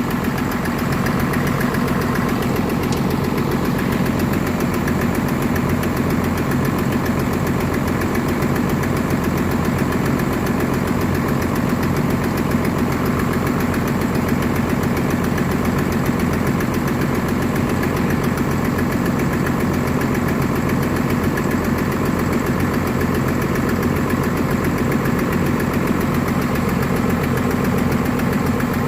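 Excavator diesel engine, a Cummins swapped into a Volvo machine, idling steadily.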